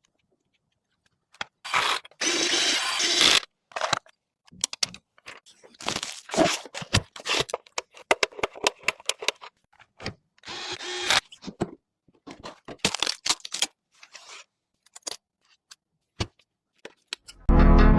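Hands-on PC assembly sounds: irregular clicks, snaps and rattles of computer parts being handled and fitted, with two short noisy bursts, the first about two seconds in and the second about ten seconds in.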